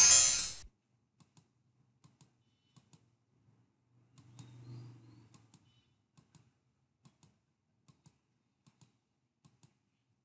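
A loud, bright sound effect ends abruptly in the first second. It is followed by faint computer clicks in quick pairs, a pair about every second, as of a mouse or key pressed and released, with a faint low hum about four seconds in.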